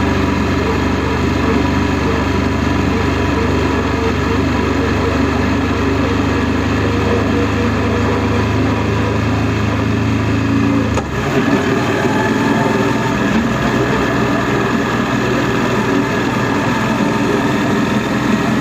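Honda NC700S motorcycle's parallel-twin engine running steadily under way. About two-thirds of the way through the engine note changes abruptly, then runs on steadily.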